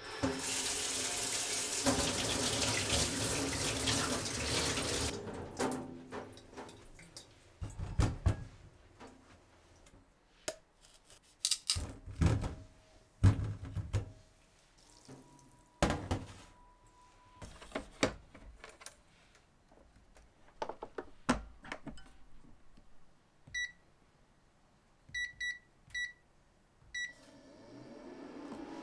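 Kitchen tap running into a stainless-steel sink for about five seconds, then scattered knocks and clunks as sweet potatoes and a metal rice-cooker inner pot are handled. Near the end, five short high beeps come from a Panasonic rice cooker's control buttons.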